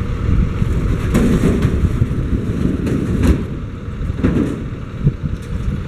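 Cart delivery truck's engine idling with a steady low rumble, with a few knocks and clatters from plastic waste carts being handled on the truck's metal bed, about one, three and four seconds in.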